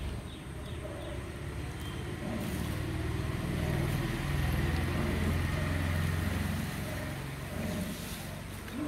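A motor vehicle's engine running, growing louder to a peak about halfway through and then fading, as if passing by or moving about close at hand.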